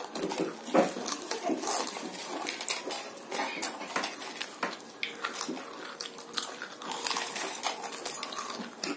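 Potato chips being crunched and chewed by several people, a run of scattered sharp crackles and crunches, with light clinks of fingers and chips against steel plates.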